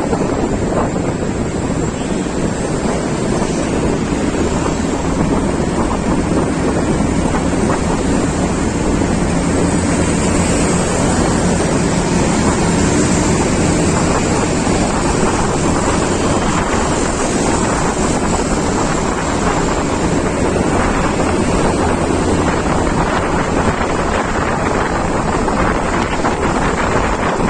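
Steady, loud wind buffeting the microphone while travelling in a moving vehicle, with a continuous rumble of road and vehicle noise underneath.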